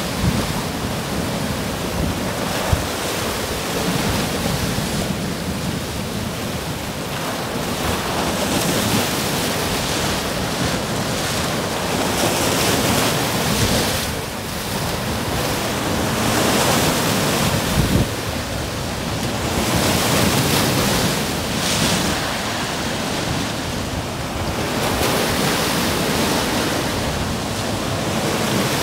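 Sea waves breaking and washing on the shore, a continuous rush that swells and eases every few seconds, with wind rumbling on the microphone and two brief bumps.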